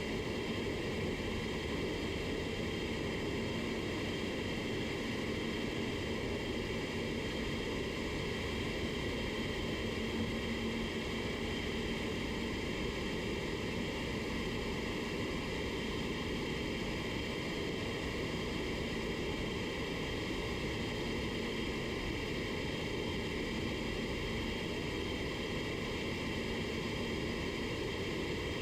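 Steady, even rushing air noise with a faint low hum, unchanging throughout, heard while clear coat is being sprayed in an auto paint shop.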